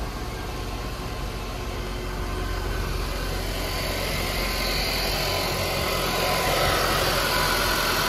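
Mercedes-Benz E250 Coupe's engine idling steadily, growing a little louder about halfway through as the open engine bay comes close.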